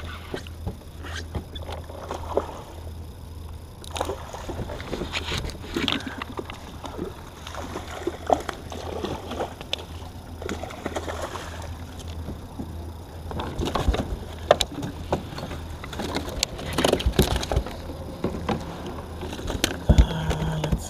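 Water sloshing against a fishing kayak's hull under a steady low rumble, with scattered knocks and clicks of gear on the kayak, busiest in the last several seconds.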